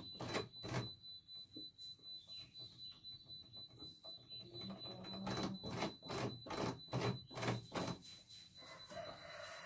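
Mechanism of a CNY portable computerized embroidery machine clicking and clacking as its handwheel is turned by hand, the clicks irregular and coming faster for a few seconds past the middle, over a faint steady high-pitched whine.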